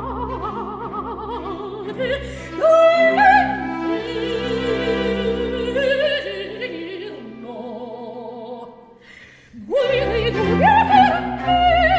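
Soprano singing a Baroque opera aria with vibrato over a string orchestra, with a quick rising run about three seconds in. The music thins out and almost stops shortly before ten seconds, then voice and orchestra come back in loudly.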